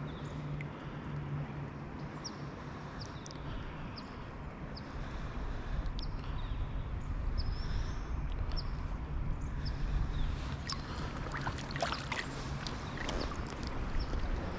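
River water flowing steadily, with a faint low hum through the first half and a cluster of sharp clicks and rattles in the last few seconds.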